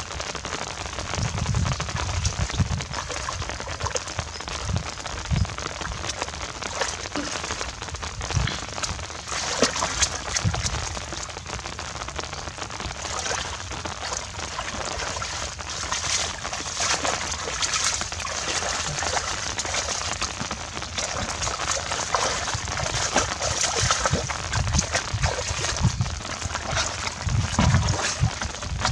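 Rain falling steadily on shallow floodwater and grass, a dense patter of drops, with occasional splashes as hands and feet stir the water. The splashing is heavier near the end.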